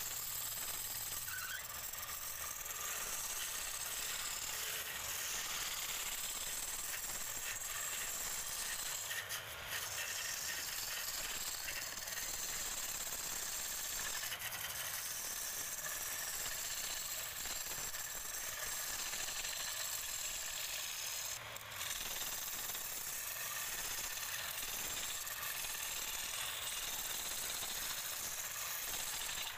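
A steel turning tool scraping the outside of a large wooden bowl spinning on a lathe: a steady, hissing cut, broken off briefly twice.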